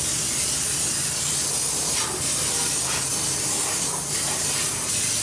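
Steady hiss of a water spray during a car engine-bay wash.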